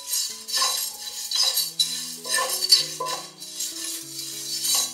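A silicone spatula stirring dry coriander seeds, cumin and whole spices around a nonstick pan as they dry-roast, making repeated scraping strokes about every half second.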